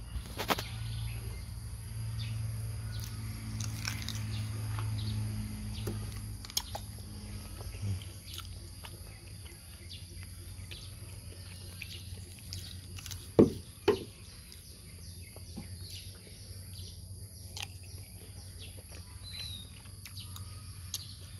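Rural outdoor ambience: a steady high insect drone with occasional short bird chirps. A low hum fades out about eight seconds in. About halfway through come two sharp knocks half a second apart, the loudest sounds here.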